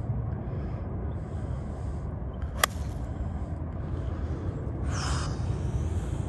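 A golf iron, a 6-iron, strikes the ball once out of the rough: a single sharp click about two and a half seconds in. A steady low rumble runs underneath, with a brief hiss about five seconds in.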